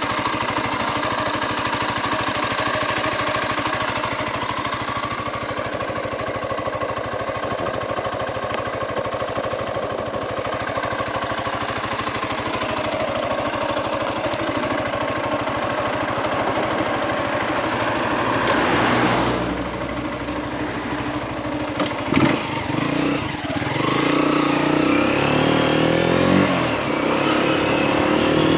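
Zontes G155's single-cylinder four-stroke engine idling steadily, then a couple of sharp knocks a little past the middle as the motorcycle moves off and accelerates, the engine note rising in pitch.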